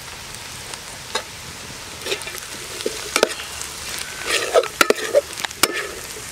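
Sliced onions and green chillies with spice powders frying in oil in a stainless steel pot, sizzling steadily. A steel spoon stirs them, scraping and clinking against the pot, with the clinks coming more often from about two seconds in.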